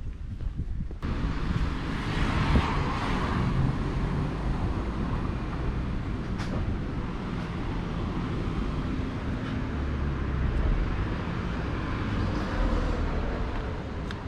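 Street traffic noise: a steady hum of passing cars and road noise, beginning suddenly about a second in and swelling briefly soon after.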